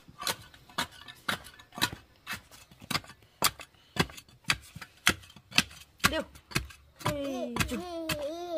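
A spade being jabbed down into the soil around a wooden post to pack the hole, with sharp knocks two or three a second. Near the end a high, wavering voice-like sound comes in.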